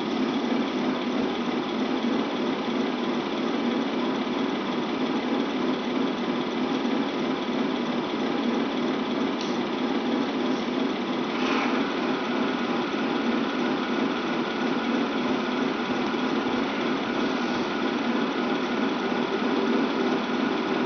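Steady engine-idle sound from the sound units of 1/16-scale Tamiya RC tanks, a simulated tank engine running at a constant level.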